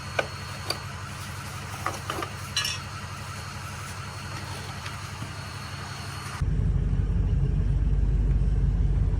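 Steady low engine rumble with a few sharp clicks and knocks; about six seconds in it cuts abruptly to a louder, deeper rumble.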